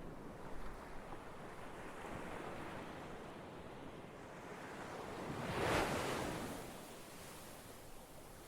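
Ocean waves washing on a shore in a steady rush, with one wave swelling louder just past the middle and then receding.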